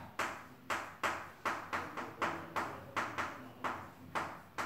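Chalk tapping and scratching on a chalkboard while writing, about a dozen quick, uneven taps at roughly two to three a second.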